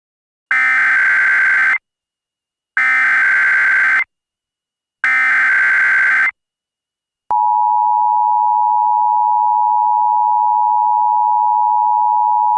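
Emergency Alert System header: three identical bursts of SAME digital data, each a harsh, buzzy screech about a second long. About seven seconds in, the steady two-tone EAS attention signal starts and holds, announcing a new alert.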